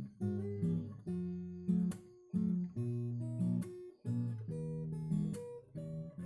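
Background music: acoustic guitar playing picked notes and chords, changing every half second or so.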